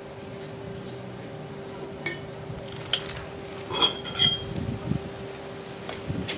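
Iron poles and U-shaped connectors of a folding fire rack knocking and clinking as they are fitted together: sharp metal clicks about two and three seconds in, then a pair of ringing clinks near four seconds, over a faint steady hum.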